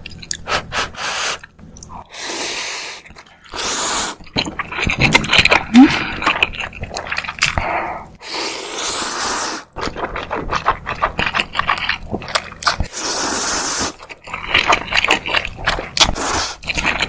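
Close-miked food preparation sounds: a run of scrapes, taps and clicks, broken by several hissing bursts a second or two long.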